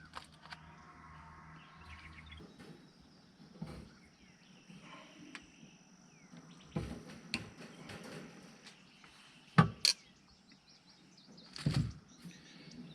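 Scattered metallic clicks and clinks of small wire clips being hooked and twisted onto wire cage panels, with the loudest snaps about ten and twelve seconds in. Small birds chirp faintly in the background.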